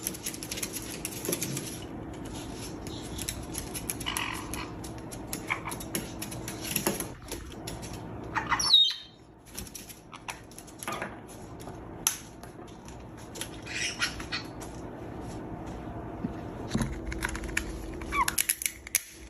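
Pet parrots making scattered sharp clicks and cracks as a beak works at a nut, with a few short squawks; the loudest call comes about nine seconds in. A steady low hum runs underneath.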